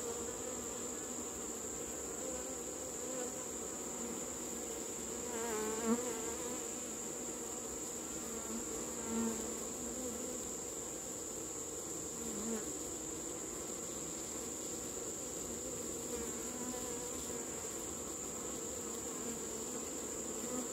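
Honey bees buzzing at an open hive: a steady colony hum, with a few louder buzzes wavering in pitch as single bees fly close, about six, nine and twelve seconds in.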